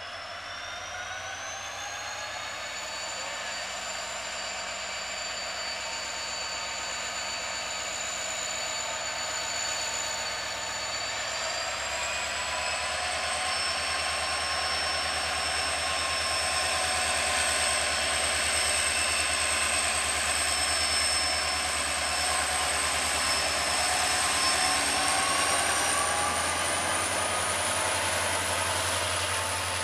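EMD WDP4B diesel locomotive's turbocharged two-stroke 16-cylinder engine working hard as it pulls a passenger train away, with a high turbocharger whine over a low engine hum. The whine steps up in pitch about three times, and the sound grows louder as the locomotive comes close and passes.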